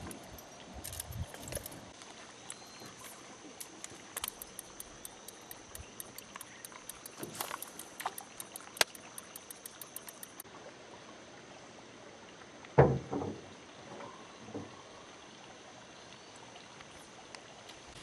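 Quiet ambience of a small aluminum boat on a river: faint water trickle with many small scattered clicks in the first half. A single sharp knock about two-thirds of the way through, followed by a softer one.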